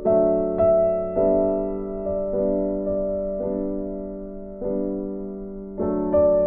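Slow background piano music: single notes and chords struck every half second to a second or so, each left to ring and fade.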